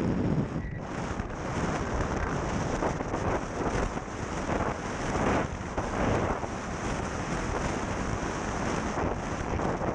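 Wind buffeting an action camera's microphone on a windsurf foil rig at speed, a steady rush that swells and falls in gusts, with water hissing off the foil board.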